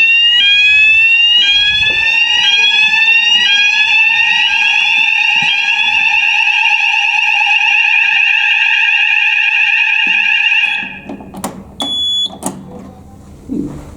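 Fire alarm sounders going off during a test: a rising sweep tone repeating about once a second over a steady lower tone, with a faster warbling tone taking over about halfway through. The alarm cuts off suddenly near the end, followed by a few clicks and a short beep.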